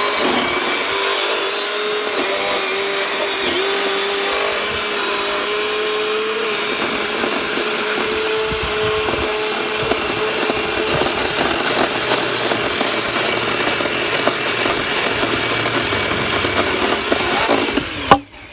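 Kobalt cordless electric chainsaw running steadily with a constant motor whine as it cuts through a small tree trunk; the motor stops abruptly near the end.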